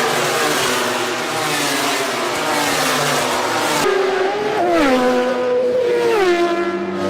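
High-revving racing engine at speed; about two-thirds of the way through the sound changes abruptly to a cleaner engine note that drops in pitch in distinct steps, as with downshifts under braking.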